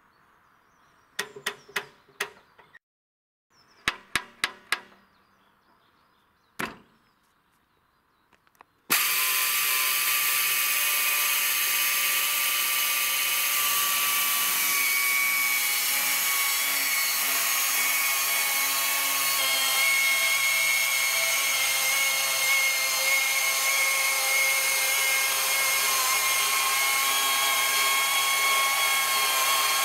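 A few sharp knocks in the near quiet, then about nine seconds in an electric chainsaw on a Logosol Farmer's sawmill cuts lengthwise through a log with a steady, even sound that holds at one speed.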